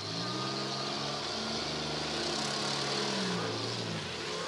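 Demolition derby car engines revving hard, the pitch climbing and dropping as the cars accelerate and back up.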